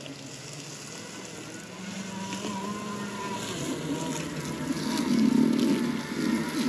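Ryobi battery-electric zero-turn riding mower driving off: a steady electric-motor whine, with a rougher rolling rumble that grows loudest about five seconds in.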